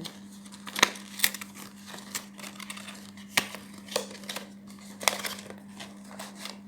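Cardboard and plastic packaging of a microphone box being opened and handled: irregular crinkling and rustling with sharp clicks and taps, over a faint steady hum.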